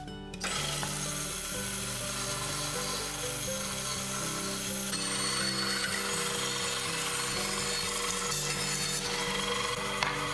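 Bandsaw cutting through a wooden board: a steady hiss of the blade in the wood that starts suddenly about half a second in, with background music underneath.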